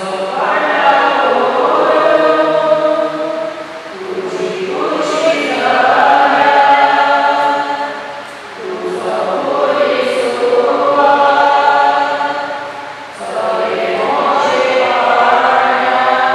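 A choir singing a hymn in four long phrases, with short breaks for breath between them.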